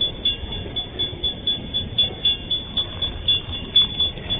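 MRS Logística freight train of empty flatcars rolling slowly past with a low rumble. Over it, a high-pitched ringing repeats about four times a second, typical of a level-crossing warning bell.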